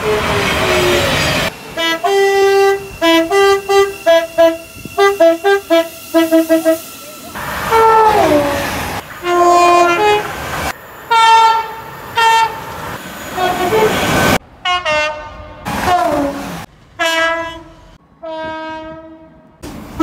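Several British passenger trains sound their two-tone horns one after another, with abrupt cuts between them. There is a rapid run of short high-low toots, then longer two-note blasts, some of them sliding down in pitch.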